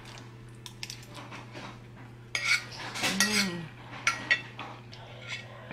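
Metal spoon clicking and scraping against a plate as food is scooped up, busiest in the middle stretch, over a steady low hum.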